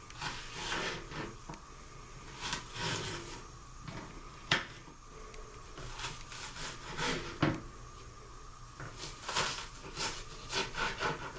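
Kitchen handling noises: scattered light knocks, taps and rubbing of utensils and cookware being moved about, with one sharp click about four and a half seconds in and a busier run of taps near the end.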